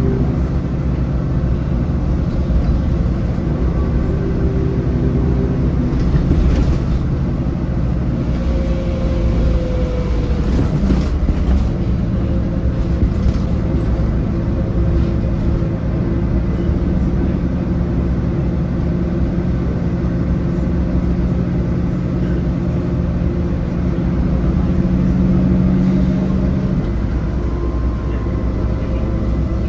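Inside the passenger cabin of a moving low-entry diesel city bus: the engine and drivetrain run steadily, with interior rattles. A steady low drone builds through the middle and drops away shortly before the end.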